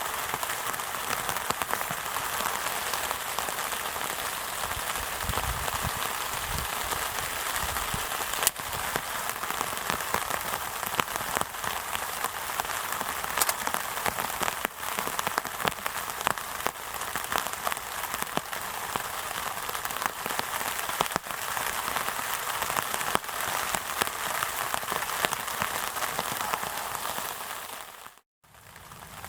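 Steady rain falling, with many separate drop hits heard through it. The sound cuts out abruptly for about a second near the end.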